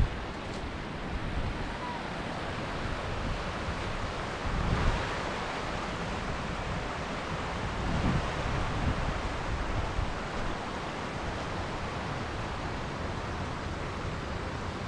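Steady rushing of a mountain stream, with wind buffeting the microphone in a few low gusts around five and eight seconds in.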